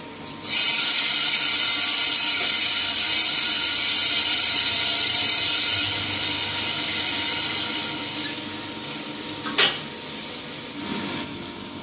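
Coffee beans pouring from the hopper into a coffee roaster's rotating drum: a loud, steady rush that starts suddenly about half a second in and tapers off after about six seconds. A single sharp click follows near the end.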